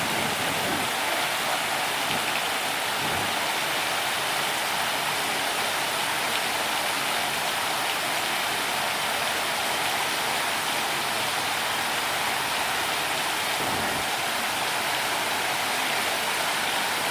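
Water falling steadily over an artificial rock waterfall, an even, unbroken rush.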